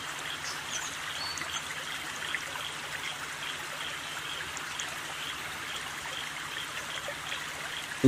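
Steady sound of running water, like a stream, with a few faint short high chirps.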